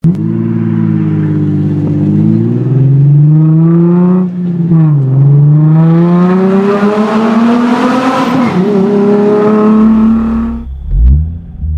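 Nissan 350Z's 3.5-litre V6 exhaust under hard acceleration. The pitch climbs, dips at an upshift about four and a half seconds in, then climbs again through the next gear. Near the end it lets off into a low, uneven burble.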